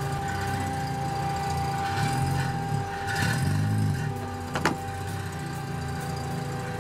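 Lada Niva 4x4's engine running in low gear, its revs rising and falling several times as it creeps over a log bridge. A single sharp snap about four and a half seconds in.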